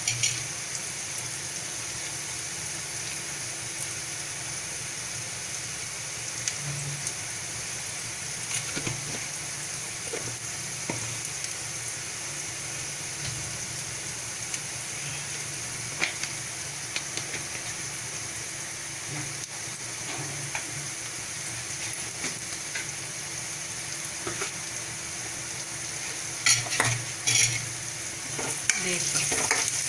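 Sliced onions sizzling steadily in hot oil in a steel kadhai, with scattered light clicks and pops. Near the end comes a short cluster of louder clicks.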